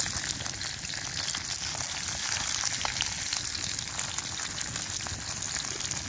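Burgers and onions frying in oil in an open hinged grill pan over a wood fire: a steady sizzle with a fine crackle.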